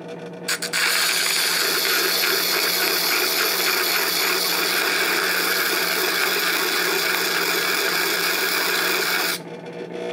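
Carbide graver being ground on a spinning 260-grit diamond wheel: a loud, steady grinding hiss starts about half a second in and stops abruptly near the end as the graver is lifted off. The hone's motor hums steadily underneath.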